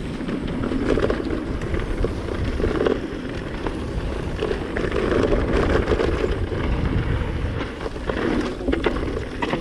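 Mountain bike riding fast down a dirt and loose-stone trail: tyres rolling and crunching over the ground with wind rush on the microphone and the bike rattling over bumps. Sharp clicks and knocks from stones and the rough surface come more often near the end.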